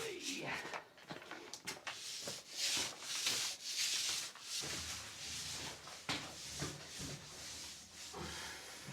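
Primer being brushed onto a rough wall: an irregular series of scratchy rubbing strokes.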